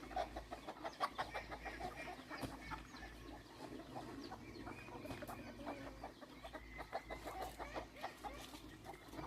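Chickens clucking, a run of short, quick calls that keeps going, busier near the start and again towards the end.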